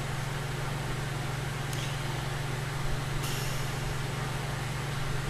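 Steady low hum over a background hiss, with a faint extra hiss coming in about three seconds in.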